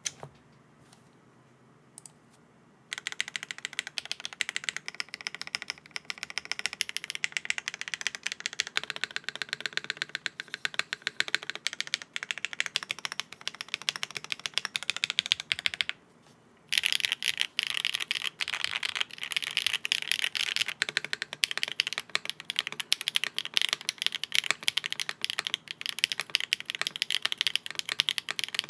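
Mechanical keyboard with HMX Hyacinth V2U switches on a polycarbonate plate with no foam, being typed on with a clacky sound. A few lone keystrokes come first, then steady fast typing from about three seconds in; it stops briefly after about sixteen seconds and comes back faster and brighter.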